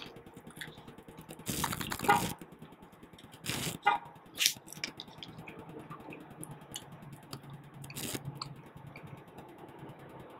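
Close-up mouth sounds of a person eating dumplings: wet chewing and smacking, with several louder wet bursts in the first half and one more about eight seconds in.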